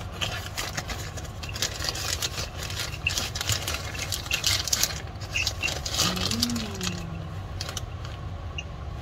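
Clear plastic wrapping crinkling and rustling as it is handled and peeled apart, over a steady low background hum.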